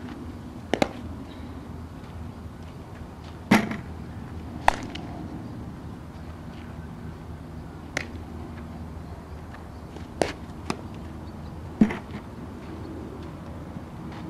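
Softball fielding drill: a handful of sharp, unevenly spaced knocks of bat on ball and ball into leather glove, two of them much louder than the rest, over a steady background hiss.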